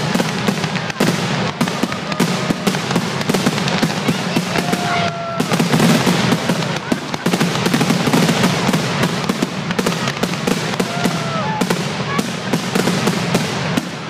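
Fireworks finale: aerial shells launching and bursting in a rapid, unbroken barrage of booms and crackles, with a few short whistling tones.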